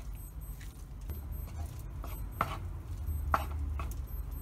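A wooden spatula stirring cooked rice in a nonstick pot, with a few sharp knocks of the spatula against the pot, two of them louder past the middle, over a low steady hum.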